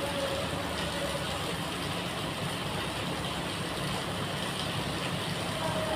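Steady low engine hum, with a pigeon cooing briefly at the start and again near the end.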